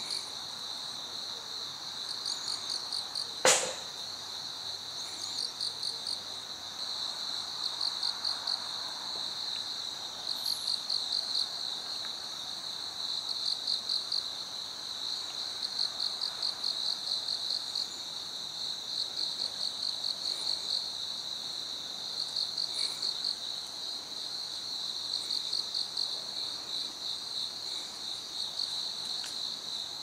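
Background insects chirping in a steady high chorus, with bursts of rapid pulsed chirps every second or two. One sharp click about three and a half seconds in.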